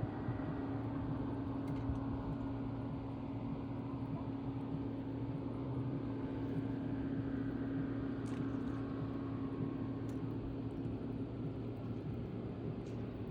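A boat's motor running with a steady, even hum.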